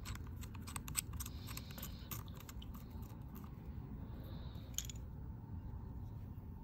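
A quick run of small clicks and taps, with one more click a few seconds later, over a low steady hum.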